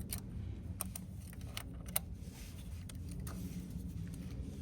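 Scattered light clicks and clinks of metal hand tools being picked up and handled, over a low steady hum.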